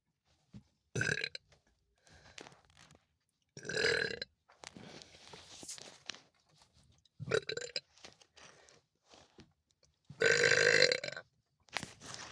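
A woman belching on command: four separate burps, the last, about ten seconds in, the longest and loudest at about a second.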